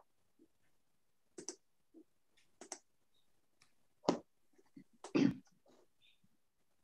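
Scattered faint clicks and rustles of small handling noises picked up by a video-call microphone, with two louder short noises about four and five seconds in.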